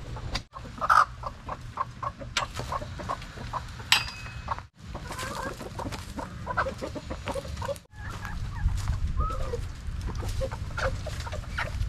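Chickens (Rhode Island Red and native hens) clucking in many short calls, with a few sharp clicks mixed in.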